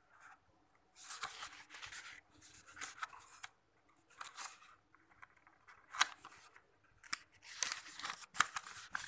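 Paper rustling and crinkling as textbook pages are handled and turned over, in a series of short scratchy bursts with brief pauses between them.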